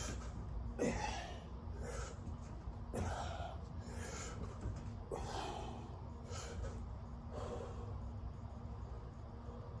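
A person breathing hard through sit-ups: about eight short, noisy exhales roughly a second apart, one with each repetition, which stop about seven and a half seconds in.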